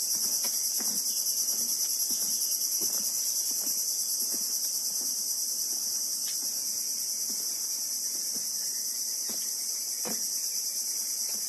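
Dense, steady, high-pitched chorus of insects in the mangrove forest, with a few faint scattered knocks underneath.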